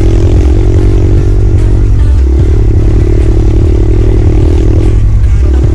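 Kayo 110cc pit bike's single-cylinder four-stroke engine running on throttle during a motocross ride. The note dips briefly about two seconds in and again about five seconds in, with a heavy low rumble underneath.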